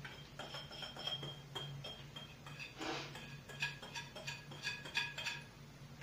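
Light clinks and taps of a bowl and utensils against a dish as a mixture is poured out, thickest in the second half, over a faint steady low hum.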